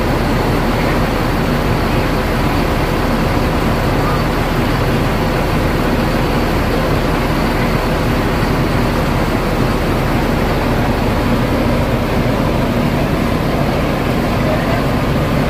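Idling bus diesel engine, a steady low hum with a noisy wash over it that does not change.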